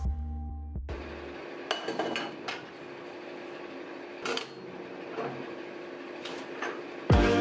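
Scattered metallic clinks and knocks, as of metal parts being handled and tapped during shop work. Background music stops about a second in and comes back loudly near the end.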